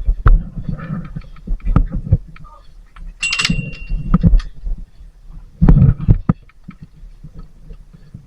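Irregular dull thuds and knocks, like footsteps and gear bumping close to the microphone. About three seconds in comes a short, sharp crack with a brief metallic ring.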